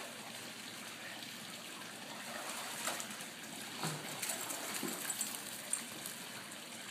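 Swimming pool water sloshing and trickling, a steady hiss of moving water with a few light splashes.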